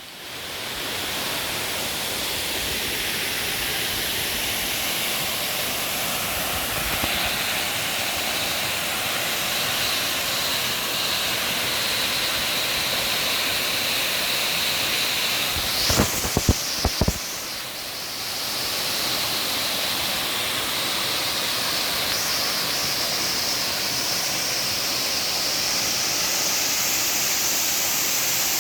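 Waterfall rushing steadily, an even, continuous roar of falling water. A few sharp knocks sound close together about sixteen seconds in.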